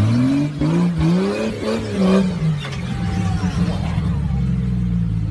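An off-road vehicle's engine revving, its pitch climbing over the first second and a half and dropping back about two seconds in, then running on at a steady lower drone.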